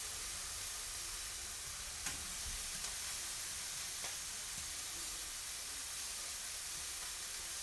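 Lemons sizzling steadily as they char in a hot skillet, with a couple of faint pops.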